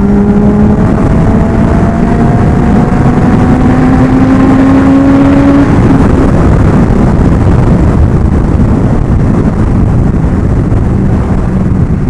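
Kawasaki ZX-10R inline-four engine pulling, its pitch climbing slowly under acceleration, then dropping out about halfway through. Loud wind rush on the microphone runs under it and carries on alone afterwards.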